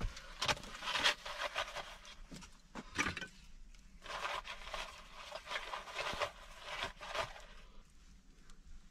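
Dry kindling sticks and curls of birch bark rustling, crinkling and knocking against each other as they are packed by hand into the firebox of a brick stove, in a string of short bursts that die down near the end.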